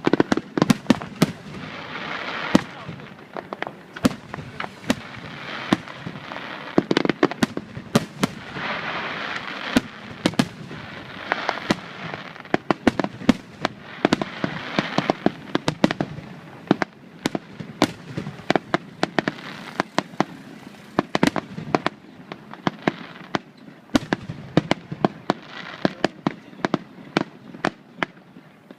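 Aerial fireworks bursting in a dense, irregular run of sharp bangs, many coming in quick clusters, over a continuous noisy rumble that swells and fades several times.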